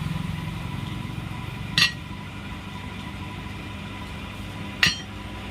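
Two sharp metallic clinks about three seconds apart, metal tool parts knocking together, over a steady low hum.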